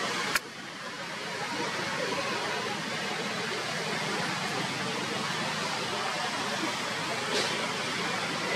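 Steady, even background hiss with no calls in it, and one sharp click about half a second in.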